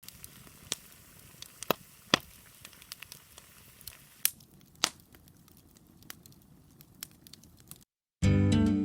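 Wood bonfire crackling, with sharp irregular pops over a low hiss. Near the end it cuts off and acoustic guitar music begins.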